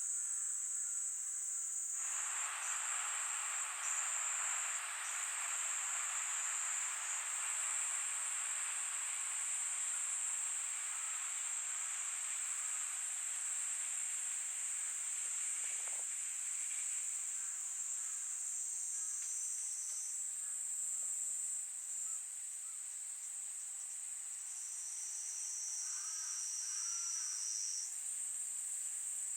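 Insects chirring steadily at a high pitch, with a second, slightly lower-pitched insect joining for several seconds near the end. A soft rushing background noise underlies the first half.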